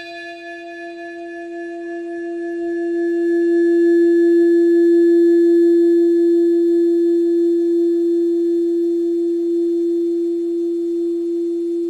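A single steady ringing tone with faint overtones. It swells to its loudest a few seconds in, then slowly dies away near the end.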